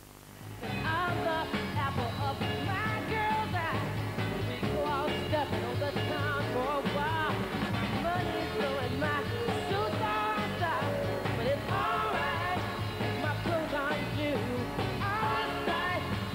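Lively rock-and-roll song with a man singing over a band. It starts about half a second in, after a brief quiet gap.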